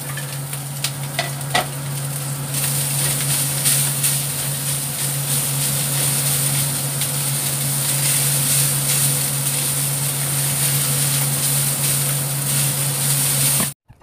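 Rice and green beans frying in a hot wok, sizzling steadily while a plastic spatula scrapes and turns them against the metal, knocking a few times in the first two seconds. A steady low hum runs underneath, and the sound cuts off suddenly near the end.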